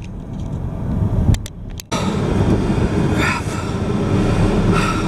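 Car cabin noise while driving: a steady low rumble of engine and road, with a brief dip about two seconds in.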